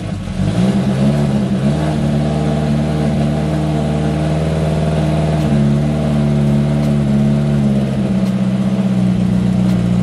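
Freshly built billet SR20VET turbocharged four-cylinder running on its first start, at a steady fast idle. Its speed shifts up and down slightly a few times.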